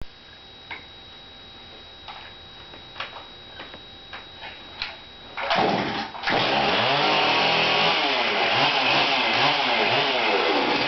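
A few light knocks, then a chainsaw starts up about halfway in and keeps running, its engine speed rising and falling.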